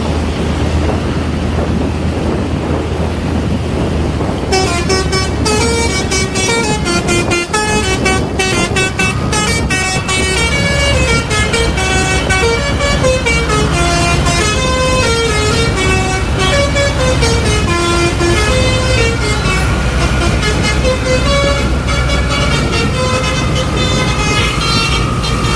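A three-quarter-size bus's Basuri telolet horn playing a quick tune of stepping notes, starting about four seconds in, over the low steady hum of the bus engine running.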